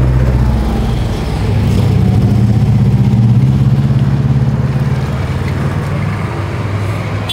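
A motor vehicle's engine running close by, a steady low drone that shifts a little in pitch and eases off slightly in the second half.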